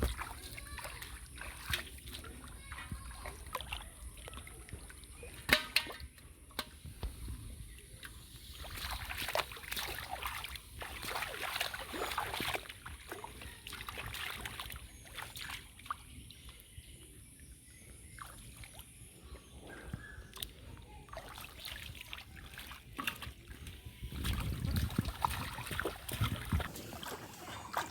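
Shallow pond water sloshing, splashing and trickling in irregular surges as hands work through it, with scattered sharp knocks.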